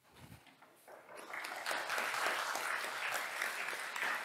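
Audience applauding, starting about a second in after a brief lull and quickly rising to a steady level.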